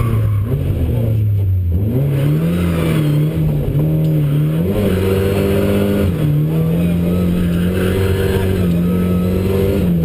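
Lada rally car's engine heard from inside the cabin at racing speed, its note falling early on, then climbing and stepping up and down as the throttle is worked.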